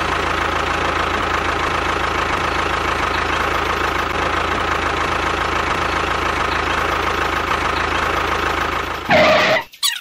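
A tractor engine running steadily at idle with a knocking rumble. It cuts off abruptly about nine and a half seconds in, right after a brief louder burst.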